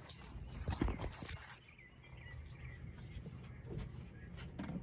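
A few light clicks and knocks, with faint bird chirps in the background.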